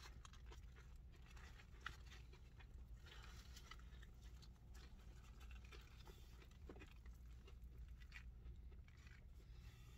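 Quiet chewing of a crispy fried chicken sandwich: soft, irregular mouth noises and small crunches over a low, steady hum, with one small click about two seconds in.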